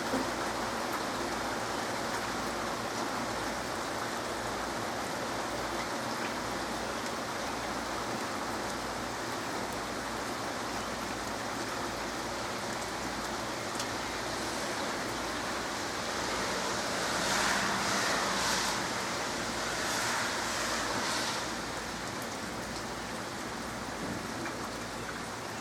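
Heavy rain falling steadily during a thunderstorm, with two louder surges of rain noise a little past the middle.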